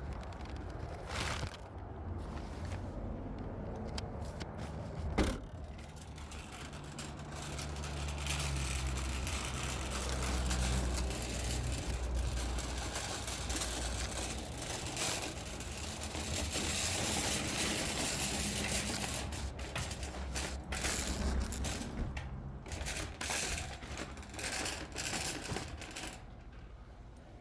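Car interior while driving: steady road and engine noise with a low hum that swells in the middle, a sharp click about five seconds in and a few small knocks and rattles near the end.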